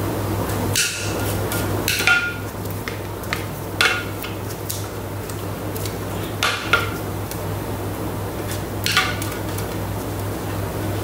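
Spatula scraping and knocking inside the stainless steel Thermomix mixing bowl as the last bechamel sauce is scraped out. There are about six sharp knocks, some leaving the bowl ringing briefly, over a steady low hum.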